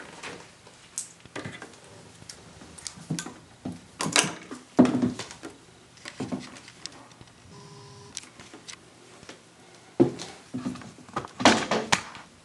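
Irregular knocks, clicks and light rustles of hands handling the sewing machine and fabric while the machine is stopped, with a few louder clunks about four seconds in and again near the end.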